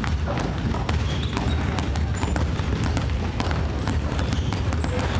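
Several basketballs bouncing on a wooden gym floor: a run of irregular, overlapping thumps from players dribbling at once, over a steady low rumble.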